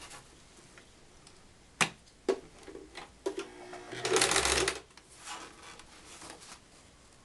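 Domestic sewing machine sewing a straight stitch in short starts: two sharp clicks about two seconds in, then a brief run and a louder burst of stitching lasting under a second about four seconds in, between stretches of fabric handling.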